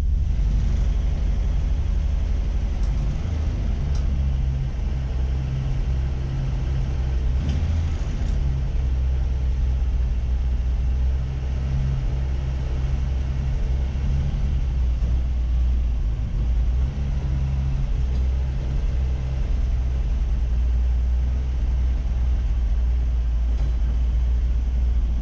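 1958 Ford F100 panel truck's engine running with a steady low rumble, its pitch shifting a few times.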